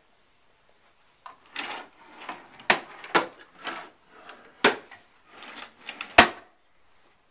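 Wooden furniture being handled: rustling and a string of knocks starting about a second in, four of them sharp, like drawers being pulled open and pushed shut.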